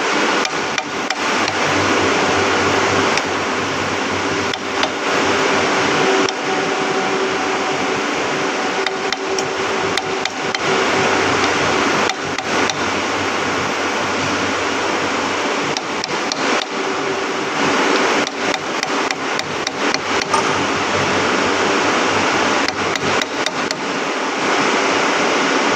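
Metal being struck over and over with a hammer, many closely spaced blows that keep on without a break, with a steady machine hum underneath.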